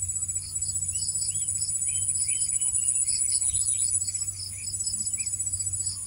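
Insects trilling steadily in two high, unbroken tones, with pulsing calls and scattered short chirps mixed in over a low steady hum.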